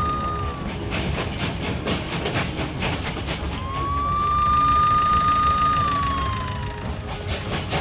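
Siren sound effect: a long tone that rises, holds and sinks, fading out just after the start and wailing again from about three and a half seconds in to about seven, over background music with a steady beat.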